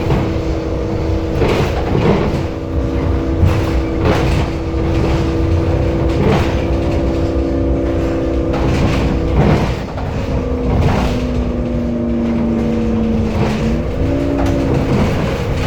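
Temsa Avenue LF city bus with a DAF diesel engine and a ZF Ecolife automatic gearbox running, with a low rumble under a steady whine of several tones. Short knocks recur irregularly every second or two, and the whine dips and then jumps in pitch near the end. This is the bus's strange sound.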